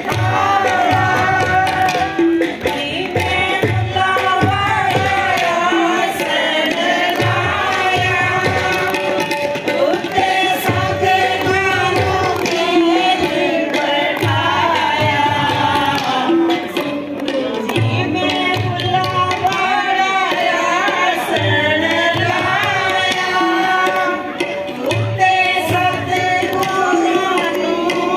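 A group of women singing a song together, one voice leading into a handheld microphone, with a drum keeping a steady beat.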